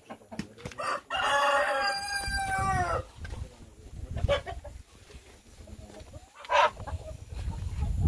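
Rooster crowing once, a long call of about two seconds that drops in pitch at the end, followed by a couple of short clucks.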